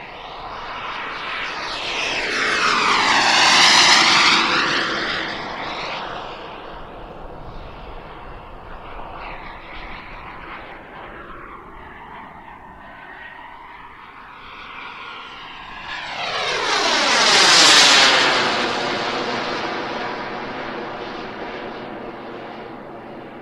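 Jet Central Mammoth turbine (48 lb thrust) of a large radio-controlled model jet, making two fast fly-bys. Each pass swells to a loud peak, about four seconds in and again near eighteen seconds, and then drops in pitch as the jet goes by, with the turbine running more quietly in between.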